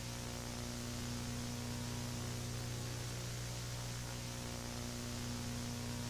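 Steady hiss of analog television static, with a constant low electrical hum underneath.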